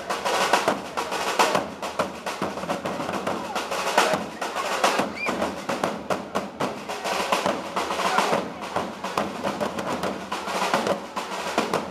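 Several parade side drums beaten together with sticks in a fast, dense drum cadence.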